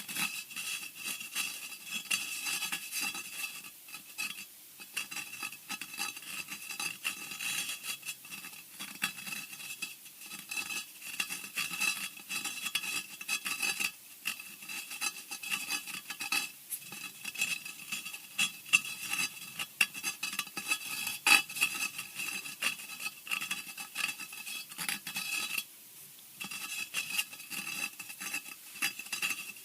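Continuous dense scratching and scraping on a hard surface, many rapid scratches with a steady high tone running through them, used as a horror scratching effect; it breaks off briefly about 26 seconds in.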